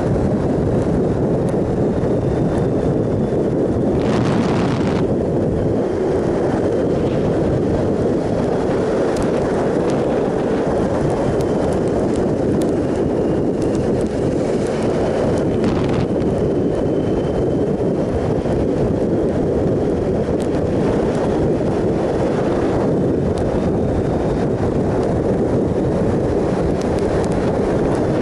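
A 2007 Triumph Sprint ST 1050 motorcycle riding at a steady cruising speed: loud, even wind rush over the microphone mixed with engine and tyre noise. There are two brief louder rushes, about four seconds in and again near the middle.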